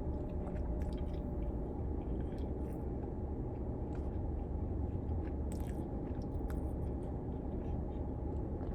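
A person chewing and biting food close to the microphone, with scattered short wet mouth clicks, over a steady low hum.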